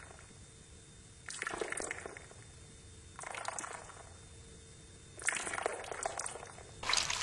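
Crackling sound effect of earwax being pulled out of an ear canal with tweezers. It comes in four bursts of about a second each, a second or two apart.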